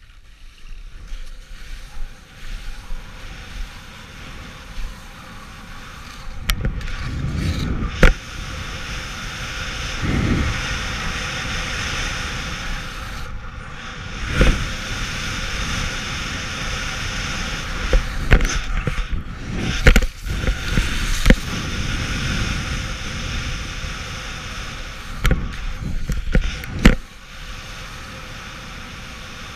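Skis sliding and carving over groomed snow, a steady scraping hiss mixed with wind on the microphone, which gets louder about six seconds in. Several sharp knocks break through it along the way.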